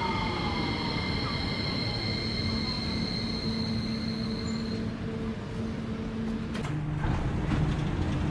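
Dubai Metro electric train pulling into the station and braking to a stop, its drive whine falling in pitch, over a steady rumble and hum. A few seconds later, the sound changes as the doors open.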